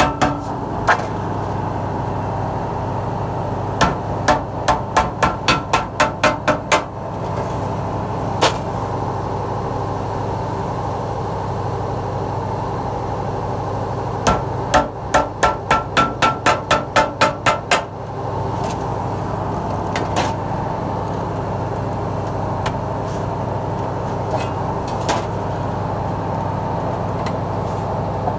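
Wooden mallet striking galvanized steel sheet over an angle-iron edge, folding it into the side of a tray. Two runs of quick blows, about three a second and each lasting a few seconds, with a few single blows between them. A steady hum runs underneath.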